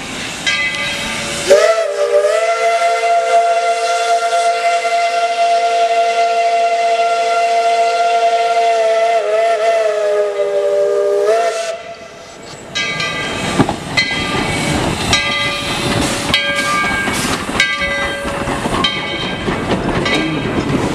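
ET&WNC No. 12, a narrow-gauge 4-6-0 steam locomotive, blows its steam whistle in one long, steady chord of several notes for about ten seconds, starting a couple of seconds in. After the whistle cuts off, the locomotive and its cars roll close past with clanks and rail clicks.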